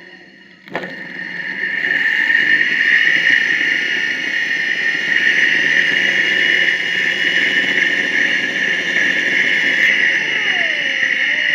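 Electric radiator cooling fan switching on with a click, spinning up over about a second, then running steadily with a high motor whine and rush of air.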